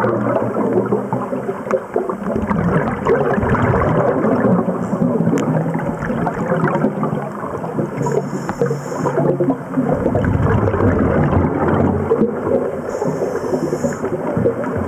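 Muffled underwater noise of a scuba diver breathing through a regulator: continuous gurgling of bubbles, with two short hisses about eight and thirteen seconds in.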